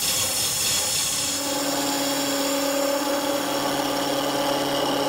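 Wood lathe spinning a wooden baseball bat blank while a small spindle gouge cuts into the knob end, a steady hissing cut over the lathe's running. A steady hum joins in about a second in.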